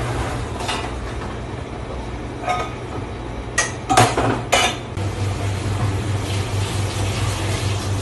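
Stainless steel pots and bowls clanking as they are handled and stacked: several sharp metal clanks with a short ring, the loudest about four seconds in. Under them runs a steady low machine hum that starts to pulse evenly about five seconds in.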